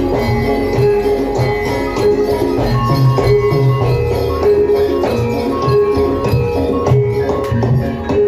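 Javanese gamelan music for a jaran kepang dance: repeated pitched metallophone notes over steady low drum strokes, with jingling percussion on top.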